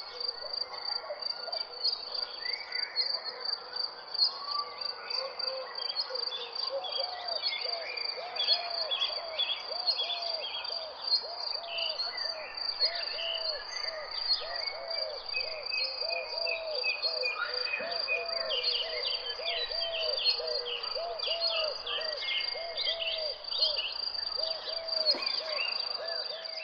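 A garden soundscape with a steady high cricket trill under many birds chirping. From about seven seconds in, a lower call repeats steadily.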